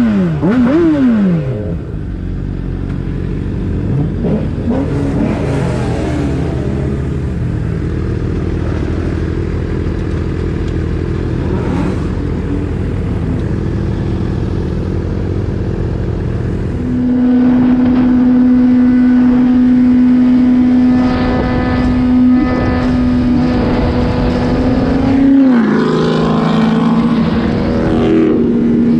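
Vehicle engines revved several times at the start, then running steadily. From about 17 s in, one engine holds a steady high pitch for about eight seconds before dropping back, with more revving near the end.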